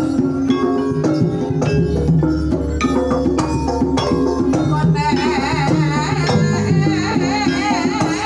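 Banyumasan gamelan playing a gending: struck keyed instruments, kendang drums and a hanging gong keep a steady interlocking pattern. A sinden's female voice sings over it with wavering ornaments, coming forward about five seconds in.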